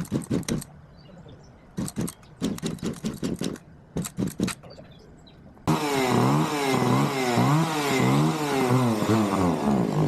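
Two-stroke chainsaw running poorly: its engine sputters in several short bursts, then a little over halfway through it catches and keeps running, revved up and down about twice a second to keep it from stalling.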